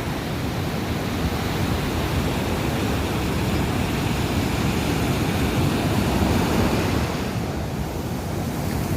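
Ocean surf breaking and washing up a sand beach, a steady rushing wash, with wind rumbling on the microphone.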